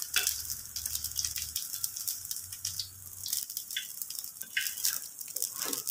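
Sotanghon noodles crackling and sizzling in hot oil in a wok, with a metal spatula scraping and tapping against the wok as the fried noodle nest is lifted out.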